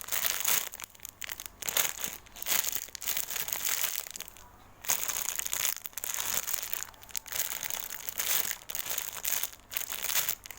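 Plastic crinkling and rustling in irregular bursts as a squishy toy is handled, with a brief pause about four and a half seconds in.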